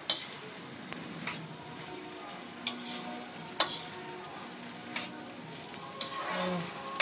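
Soaked rice frying in ghee in a kadhai over a high gas flame, with a steady sizzle. A metal spoon stirs it and clinks sharply against the pan about six times.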